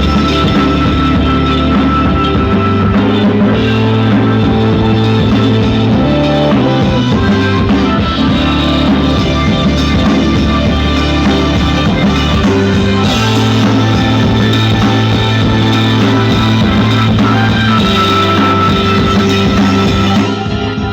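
Rock-style music with guitar and drums played loud through a 300-watt amplifier board built on 5200 power transistors, driving woofers in a sound test. It is heavy in the bass and eases down a little near the end.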